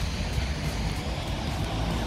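Steady road traffic noise on a wet street, with a deep rumble underneath.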